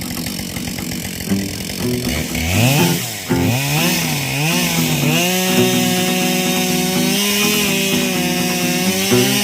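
Chainsaw revved up and down several times, then held at a steady high speed while felling a dead fir snag.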